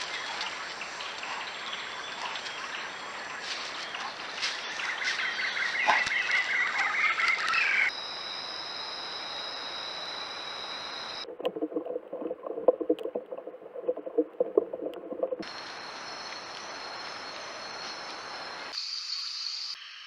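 Rainforest ambience on trail-camera audio: a dense chorus of insects and frogs with steady high-pitched trills, its character changing abruptly several times where the clips cut. Early on there is quick chirping. About halfway through, a lower, rapidly pulsing call comes in for a few seconds.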